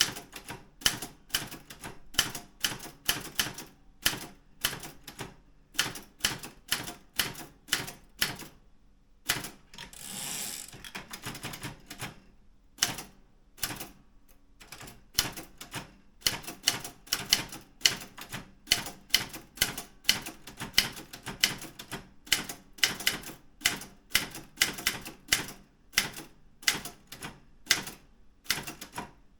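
Daro Optima M16 manual typewriter being typed on: typebars striking the platen at a steady two to three keystrokes a second. The typing stops once, about ten seconds in, for a longer sliding rasp as the carriage is returned to start a new line.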